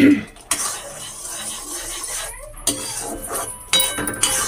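Semolina halwa sizzling in a wok as a wooden spatula stirs and scrapes through it, with a few sharp knocks of the spatula against the pan.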